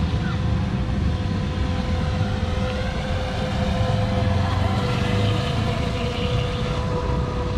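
Electric RC mono speed boat running out on the water: a faint motor whine that rises and falls in pitch as the boat turns, over a steady low rumble.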